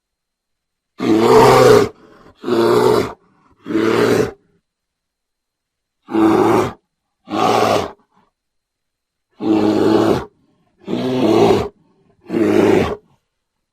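Eight short, loud animal calls, each under a second, with complete silence between them.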